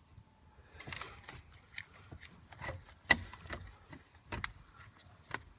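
Irregular small clicks and scrapes of hand tools and plastic parts on a steering column as the screws holding the multi-function turn-signal switch are taken out, with one sharper click about three seconds in.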